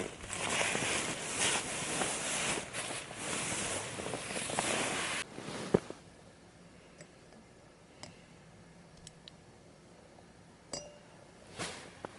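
Rustling noise for about five seconds that stops suddenly, then a sharp click and a few faint clinks.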